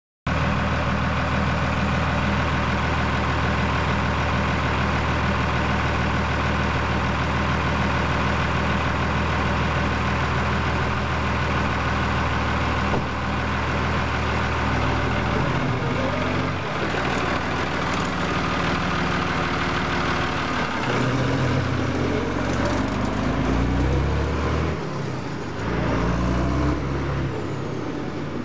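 Fiatagri F130 tractor's six-cylinder diesel engine running loud through a straight pipe. It idles steadily for about the first half, then revs up and down with shifting pitch as the tractor pulls away, growing a little quieter near the end.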